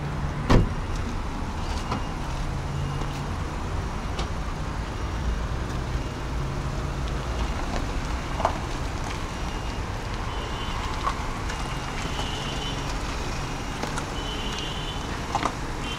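Hyundai Solaris running with a steady low hum, with a sharp click about half a second in.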